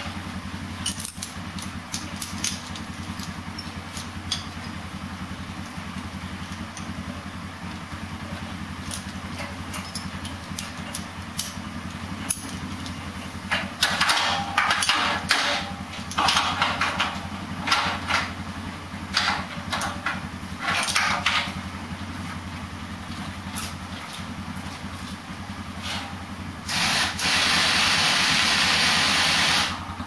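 Sawmill engine idling steadily. Irregular bursts of clattering noise come through the middle, and near the end a loud steady hiss lasts about three seconds.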